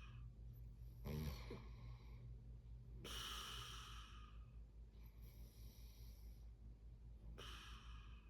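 A sleeping person snoring: a short, low snort about a second in, followed by a few slow, airy breaths in and out.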